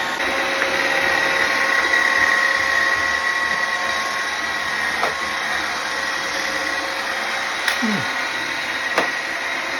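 iRobot Roomba robot vacuum running, its brush and vacuum motors making a steady whine, with a few sharp clicks or knocks in the second half.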